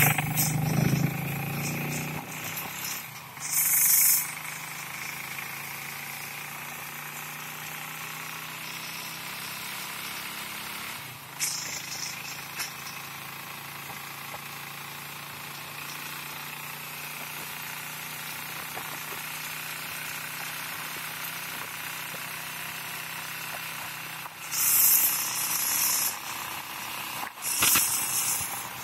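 Tricycle's motorcycle engine running steadily while riding, with road noise. A few brief louder rushes of noise come and go, about four seconds in, near twelve seconds, and twice near the end.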